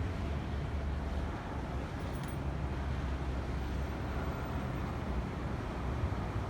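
Steady low rumble of city traffic noise, with a brief faint click about two seconds in.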